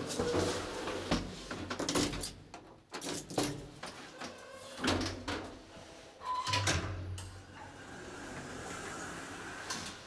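Small elevator's doors working: a string of knocks and clicks from the swing landing door and the sliding inner doors as they close, a short beep about six and a half seconds in, then a steady low hum.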